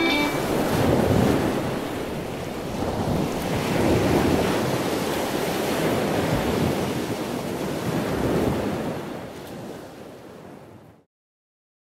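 Ocean surf breaking and washing onto a sandy beach, with wind rumbling on the microphone. It fades out near the end and cuts to silence.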